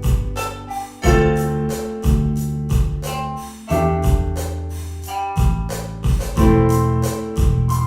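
Lo-fi hip-hop instrumental: mellow electric piano chords that change every second or two over a bass line and a steady drum beat.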